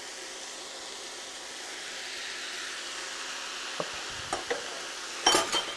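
Chinese cabbage and bean sprouts sizzling in a hot wok over high heat, a steady hiss. A few light knocks in the second half and a brief, louder clatter near the end.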